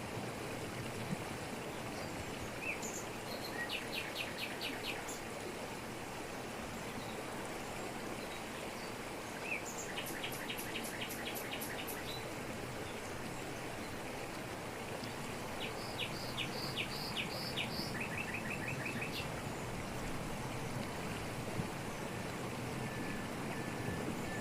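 Waterfall splashing over rocks, a steady rushing, with birds calling over it in quick runs of repeated notes: one about four seconds in, another around ten seconds, and a longer series in the second half.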